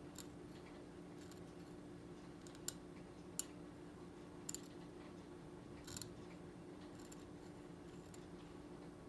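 Steel hand scaler scraping and clicking against the plastic teeth of a dental typodont during scaling strokes: faint, sharp ticks at irregular intervals, the loudest two about three seconds in, over a low steady hum.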